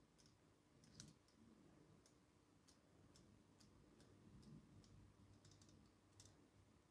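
Near silence with faint, irregular light clicks from the brass parts of an antique clock movement being handled as its pallet is fitted.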